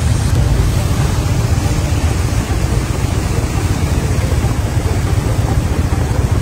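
Motorcycle ridden through muddy floodwater flowing across the road, heard from on the bike: a steady low rumble of engine and rushing water.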